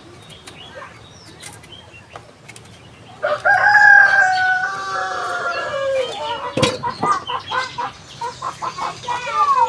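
A rooster crowing once, a long call of about three seconds that starts about three seconds in and drops in pitch at its end, followed by a run of short, clucking calls.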